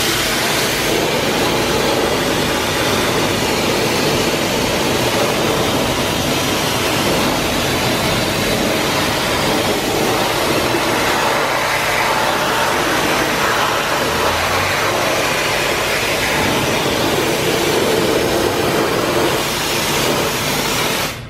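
Self-service car wash pressure-washer lance spraying a car wheel and tyre: a loud, steady hiss of high-pressure water that cuts off suddenly at the end.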